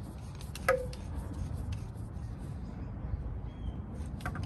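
Click-type torque wrench set to 130 ft-lbs being fitted and pulled on a truck lug nut: faint rubbing and scraping of the socket and handle, with one sharp click about two-thirds of a second in and a few smaller clicks near the end, over a low steady rumble.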